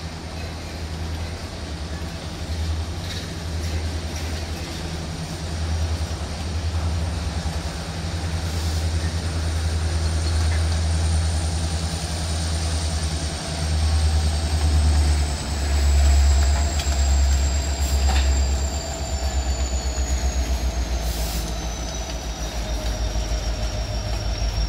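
Freight train's tank cars and covered hoppers rolling past over a steady low rumble, with thin, high wheel-flange squeal that slowly falls in pitch. Near the end the rumble takes on a regular throbbing beat as the distributed-power EMD SD70ACU diesel locomotive comes out of the tunnel.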